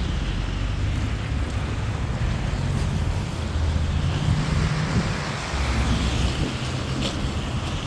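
Wind buffeting the microphone in uneven low rumbles, over a steady hiss of sleet and rain falling on wet pavement.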